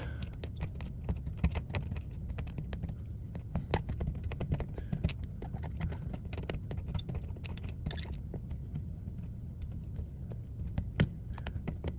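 Metal dental pick scraping and picking at dried brown circuit glue on a circuit board: a run of small, irregular clicks and scratches over a low steady background hum. The aged glue is being removed because it turns conductive.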